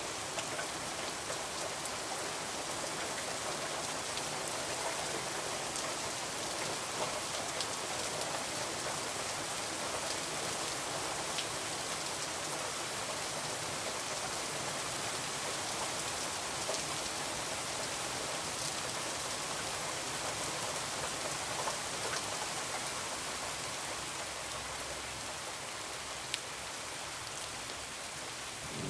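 Heavy rain falling steadily, with a few sharp ticks scattered through it.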